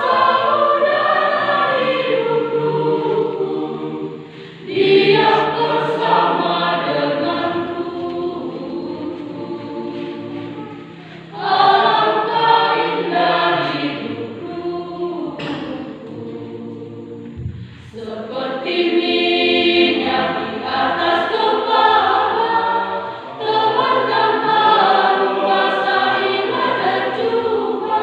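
Church choir singing a hymn in several parts, in phrases with short breaks between them.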